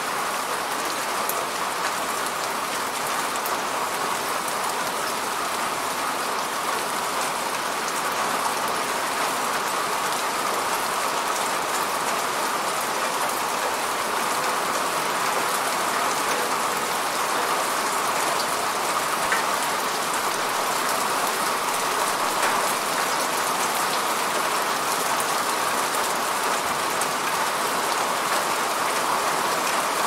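Steady rain falling, an even hiss.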